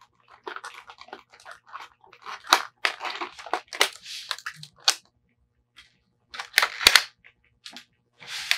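Clear packing tape and plastic packaging crackling and snapping as a plastic toy playset is unpacked and handled: an irregular run of crinkles and sharp clicks, with the loudest snaps about two thirds of the way through.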